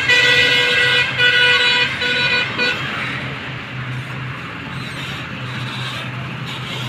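A vehicle horn toots four times on one steady pitch over the first three seconds, the first toot about a second long and the last ones short, over the steady running of a dump truck's engine.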